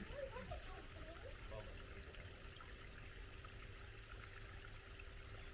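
Faint, steady running water, like a small stream. A few faint wavering sounds come through in the first two seconds.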